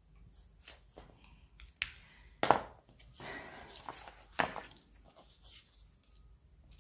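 Handling noises at a craft table: a few sharp clicks and taps, the loudest about two and a half seconds in, as a gel pen is set down, with soft paper rustling and sliding as stamped paper flower cut-outs are picked up and laid on a card.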